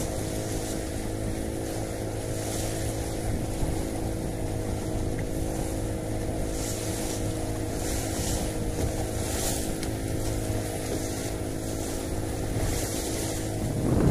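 A small fishing boat's engine running at a steady, even speed, with an irregular high hiss that swells and fades every second or two.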